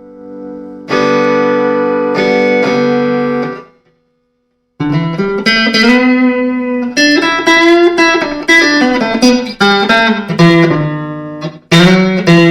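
Electric guitar played clean through a small practice amp, as a sound check after a new nut and action adjustment. A chord rings out and is cut off after a few seconds, then, after a brief silence, a run of picked notes and chords follows.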